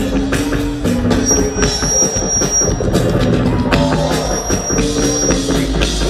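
Live band music over a loud sound system: drum kit beats over a moving bass line, with a high held note coming in twice.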